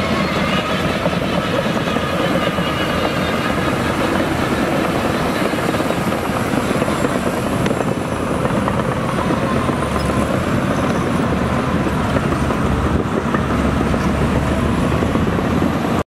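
Shantui DH17C2 crawler bulldozer at work pushing dirt: its diesel engine running steadily under load, with the clatter of its steel tracks.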